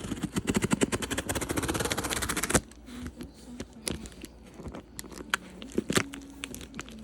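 Cardboard doll-box packaging being worked open by hand: a fast run of scratchy clicks for about two and a half seconds, then scattered taps and knocks.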